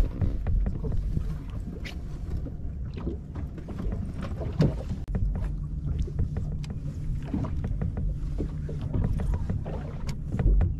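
Wind buffeting the microphone over the rumble of choppy water against a boat's hull, with scattered light clicks and taps.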